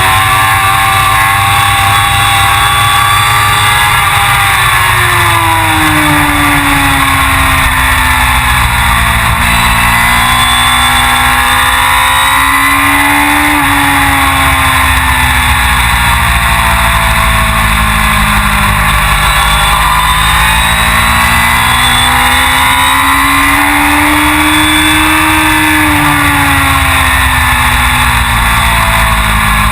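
Suzuki GSX-R1000 superbike's inline-four engine running hard under racing load, its pitch rising and falling several times in long sweeps as it accelerates and slows through corners.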